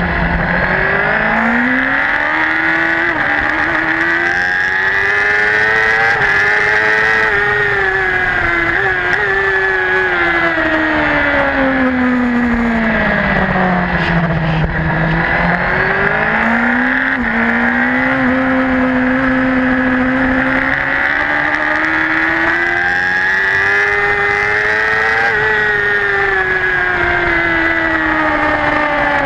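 Racing superbike engine at full race pace, heard from an onboard camera. The revs climb through the gears with short steps at each shift. They fall to their lowest about halfway through as the bike slows through a corner, then climb again.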